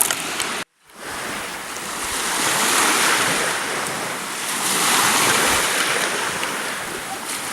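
Sea surf washing on the shore, a steady rush that swells and ebbs twice.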